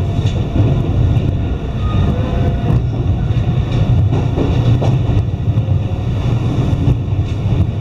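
Iyo Railway Takahama Line electric train running, heard from inside the carriage: a steady low rumble of the wheels on the track, with faint clicks here and there.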